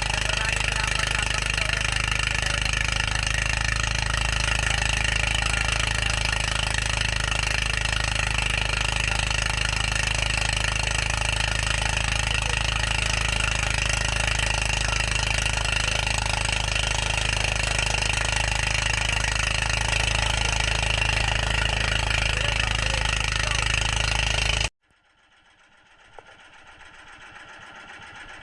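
Fishing boat's engine running steadily and loudly, with a rapid knocking rhythm. It cuts off abruptly near the end, and a much fainter engine sound then slowly rises.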